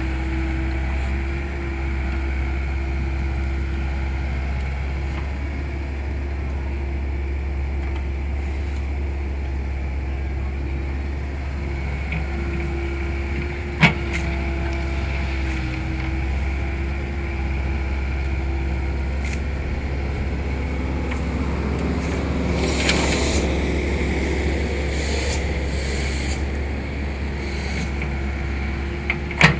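Heavy vehicle engine running steadily, with two sharp knocks, one about halfway through and one near the end, and a brief rushing swell of noise some two-thirds of the way through.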